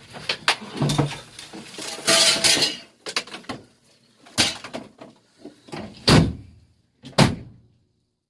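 A series of sharp knocks and thuds from objects being handled, with a scraping clatter about two seconds in and the loudest bang about six seconds in. The sound cuts off suddenly near the end.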